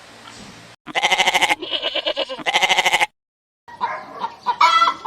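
A goat bleating, a loud, quavering call in three close parts lasting a little over two seconds. After a short gap, ducks start quacking near the end.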